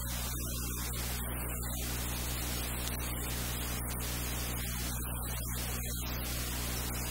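Steady hiss with a low electrical hum underneath, unchanging throughout: background noise of the recording, with no distinct sound event.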